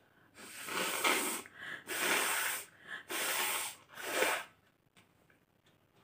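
A woman blowing her nose hard into a piece of paper held to her nostrils: four long, forceful blows one after another, then quiet.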